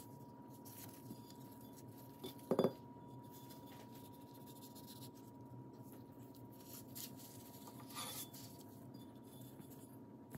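A faint steady hum under soft handling noise, broken by one short ringing clink about two and a half seconds in and a lighter knock near the end, like hard kitchen things touching.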